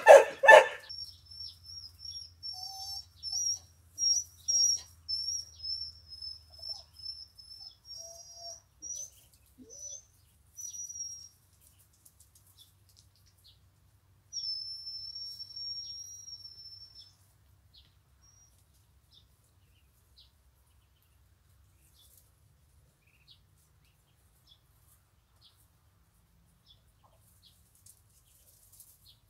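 Week-old ducklings peeping: a loud short call right at the start, then runs of high, thin peeps for about ten seconds, and another run a few seconds later, after which the peeping stops.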